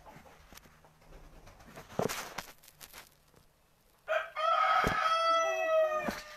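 A rooster crows once: a long call of about two seconds beginning about four seconds in, falling slightly at its end. A short rustle comes about two seconds in, and a sharp knock partway through the crow.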